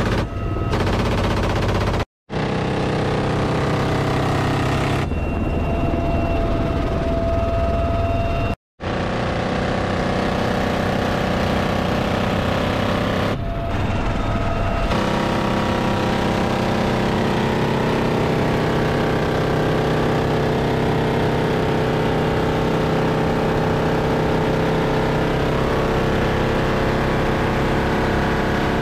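Loud helicopter rotor and turbine noise heard from inside a UH-1Y Venom's open cabin door, with door-mounted machine guns (a .50-caliber gun, then a GAU-17 minigun) firing in places. The sound breaks off briefly into silence twice.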